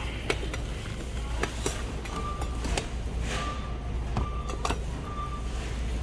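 Metal lids and glass jars of three-wick soy candles tapping and clinking as they are handled and lifted, several separate clicks over the steady low hum of a store.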